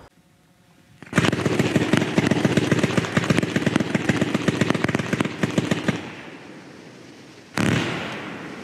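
Consumer fireworks going off: a rapid, machine-gun-like string of cracks for about five seconds that then fades. A single loud bang follows near the end.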